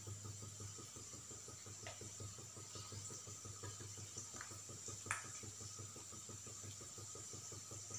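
Faint crackle and sizzle of urad dal vadas deep-frying in hot oil in a kadhai, over a low steady hum. A few small clicks, the loudest about five seconds in.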